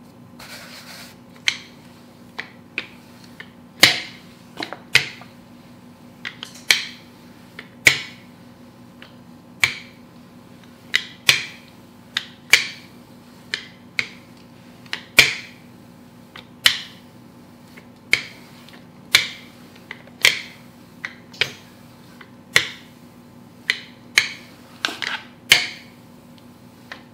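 Rolling pin working pie dough on a wooden cutting board: a sharp knock or click at most strokes, irregular, about one a second.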